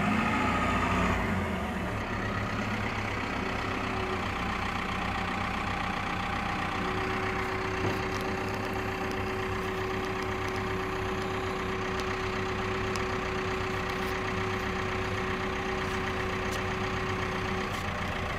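Snow plow truck's engine idling steadily, a little louder in the first second or so. From about a third of the way in, a steady whine sits over it until shortly before the end.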